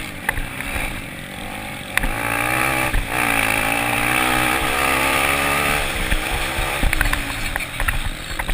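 Off-road racing motorcycle engine in the 250 cc velocross class, revving up about two seconds in, holding high revs for a few seconds, then dropping back.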